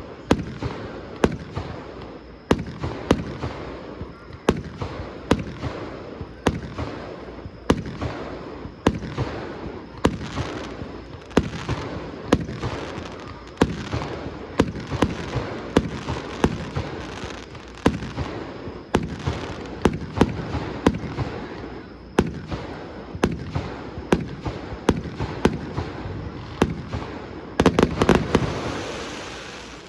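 Display fireworks bursting overhead, a sharp bang about once a second over continuous crackling and rumble. Near the end comes a dense volley of bangs, then the sound dies away.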